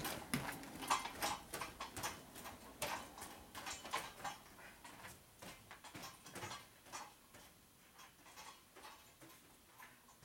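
Footsteps on a hard shop floor walking away, about two steps a second, growing steadily fainter until only faint ticks remain near the end.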